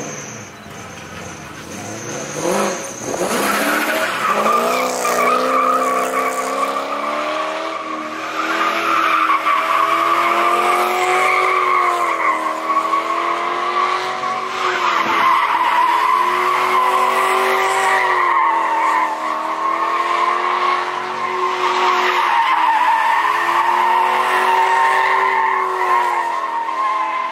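A car drifting: tyres squealing continuously while the engine revs rise and fall every few seconds. The engine revs up sharply about two to three seconds in, before the squeal sets in.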